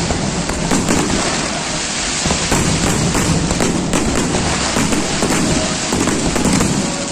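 Fireworks display: many shells and crackers bursting in quick succession, the bangs and crackling overlapping into an almost continuous barrage.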